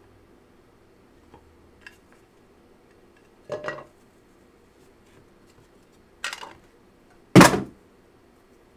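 Clear hard-plastic card case being handled on a table: a few faint ticks, short plastic clacks about three and a half and six seconds in, then a louder knock near the end as it is set down.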